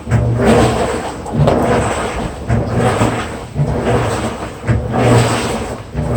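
Washing machine running a wash cycle: regular swishing surges of water and laundry, about one a second, each with a low hum.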